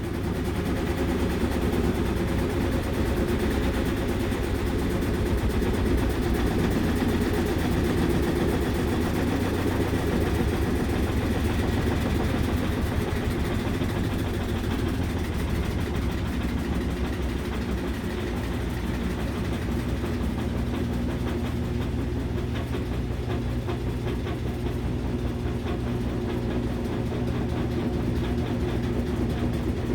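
Washing machine running steadily with a low, even motor and drum hum, fitted with a new belt, shock absorbers, drum support springs and pump.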